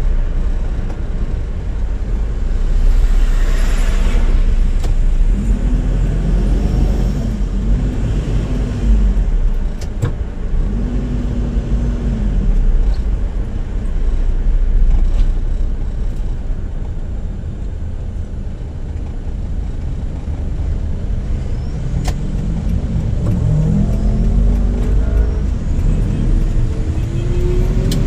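Toyota Innova with an automatic transmission on a road test, heard from inside the cabin: a steady low engine and road rumble, with the engine note rising and falling several times and climbing again near the end as the car accelerates.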